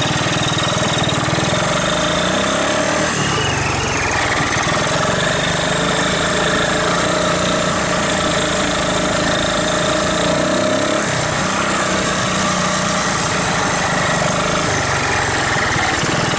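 1981 Honda ATC185S three-wheeler's air-cooled four-stroke single-cylinder engine running under way, its note rising and falling several times with throttle and gear changes. A steady squeal holds its pitch through the changes in engine speed, an engine fault not yet traced.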